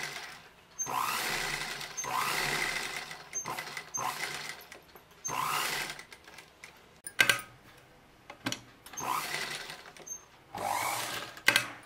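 Electric sewing machine stitching fabric in short runs of about a second each, stopping and starting several times. A few sharp clicks fall in the pauses.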